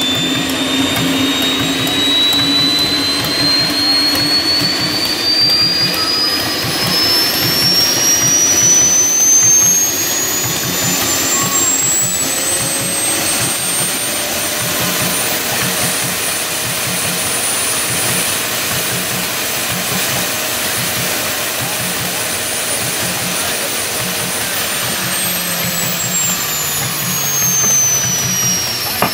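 Small jet (gas turbine) engine mounted on a riding lawn tractor, running loudly with a high whine. The whine climbs steadily for about fifteen seconds as the engine spools up, holds steady, then falls in the last few seconds as it spools down.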